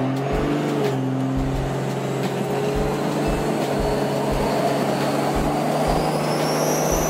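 Cummins diesel pickup with compound turbochargers pulling hard under acceleration, heard from inside the cab. The engine drone stays steady while a turbo whistle starts about three seconds in and rises in pitch as boost builds.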